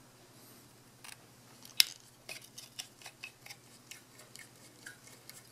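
Flathead screwdriver backing out small screws from the metal back housing of a VW Beetle speedometer. It makes faint, irregular metal clicks as the blade works in the screw slots, with one sharper click about two seconds in.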